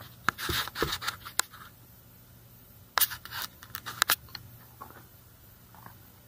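Handling noises: a cluster of sharp clicks and short rustling scrapes in the first second or so, then another run of clicks and scrapes around three to four seconds in, as objects are picked up, moved and set down.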